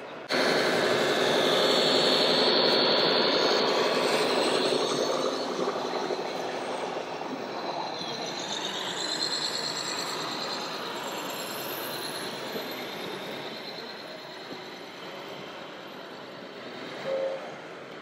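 Radio-controlled model trucks running, a steady mechanical whine with high squealing tones. It starts suddenly, is loudest for the first few seconds, then eases off.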